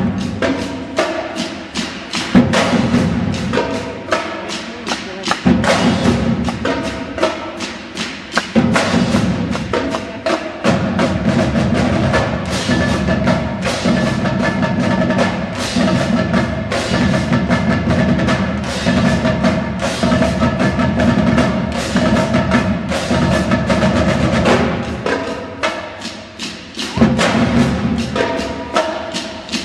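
Marching band drum line playing a fast, busy cadence of crisp snare strokes and rim clicks over low sousaphone notes. The low notes drop out briefly a few times, leaving only the drums.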